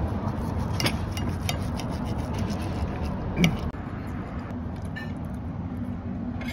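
A knife and fork scraping and clinking on a plate a few times, the loudest clink about three and a half seconds in, over a steady low rumble in the background.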